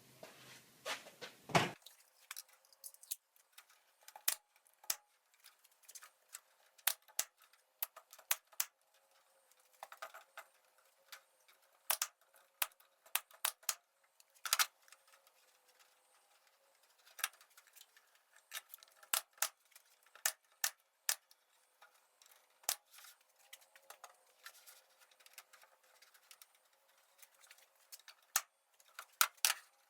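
Staple gun driving staples through hardware cloth into wooden nailer strips: a run of sharp single clicks at irregular intervals, sometimes two or three close together.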